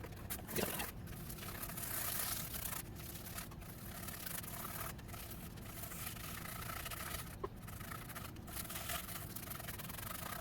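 Continuous soft scraping and rubbing of a tool working penetrating epoxy over a rough, ridged wood slab.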